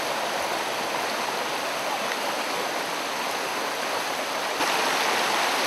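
Stream running over boulders: a steady rush of water that gets a little louder about four and a half seconds in.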